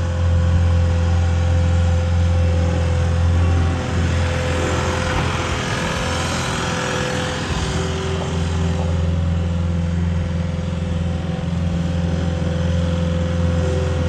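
Cat 242D skid steer's four-cylinder diesel engine running steadily as the machine drives and turns on dirt. A swell of higher-pitched noise comes and goes about halfway through.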